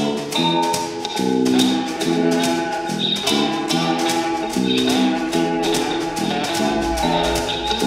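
A homemade cigar box guitar band plays a repeating blues riff. Slide notes glide on a fretless cigar box guitar and a two-string diddley bow, over a steady tick of brushes on a snare drum. A low fretless stick bass comes in near the end.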